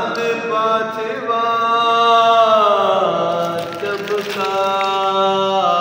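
A voice chanting a devotional song in long, held notes that slide between pitches, with a falling glide about halfway through.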